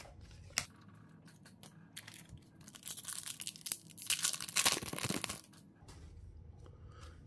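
A foil trading-card pack wrapper being torn open and crinkled by hand, a few seconds of crackly tearing, loudest near the middle, after a single click near the start.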